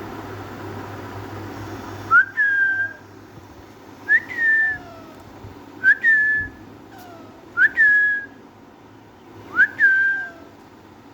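Pet parakeet calling: five loud whistled calls about two seconds apart, each a sharp upward note that levels off into a short held whistle.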